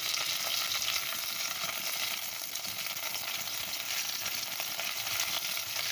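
Finely chopped garlic and freshly added curry leaves sizzling in hot oil in a pan, a steady hiss with fine crackles.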